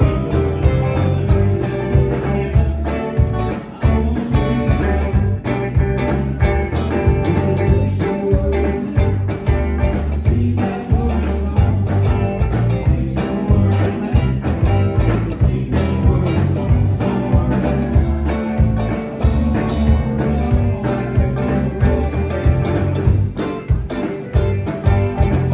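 Live blues band playing an instrumental passage, with electric guitars, electric bass, drums and keyboard.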